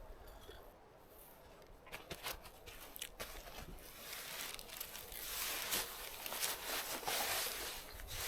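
Crunching and rustling underfoot, like steps through forest ground cover: a few separate crunches, then a louder, denser stretch of rustling from about four seconds in.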